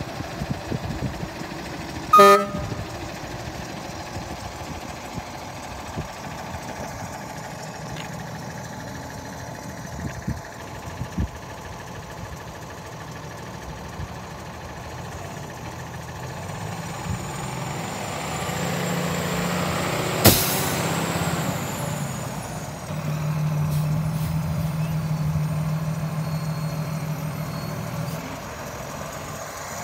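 Freightliner M2 day-cab tractor's diesel engine idling, with a short horn toot about two seconds in. Past the middle comes a sharp burst of air hiss, typical of the truck's air system venting, and near the end the engine note grows louder and holds for about five seconds.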